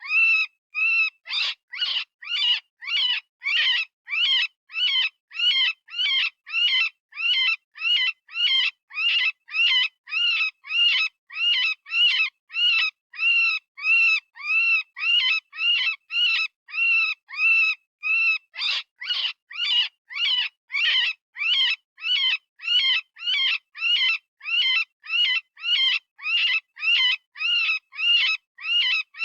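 Electronic rabbit distress call, the screaming cry of a rabbit in pain or fear as used for predator calling: short high-pitched cries, each rising and falling in pitch, repeated evenly about twice a second without a break.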